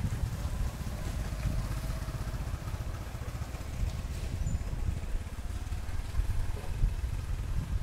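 Wind buffeting the microphone outdoors: an uneven low rumble that rises and falls throughout.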